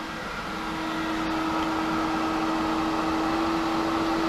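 Hayward Super Pump VS variable-speed pool pump running under load, a steady motor hum with a rushing hiss, edging up in pitch near the end as its speed is stepped up toward 3000 RPM.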